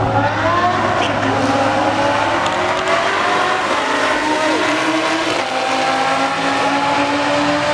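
Several car engines running hard on the track, their pitches slowly rising and overlapping as the cars accelerate.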